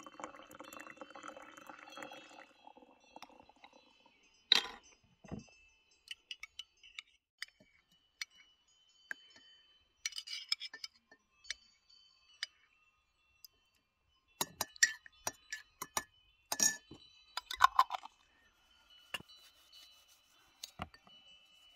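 Hot water poured from an enamel kettle into a ceramic mug for the first few seconds. Then a scatter of sharp clinks as a metal spoon knocks against the mug and a glass honey jar, the loudest about four seconds in and again two thirds of the way through. A knife cuts into a lemon near the end.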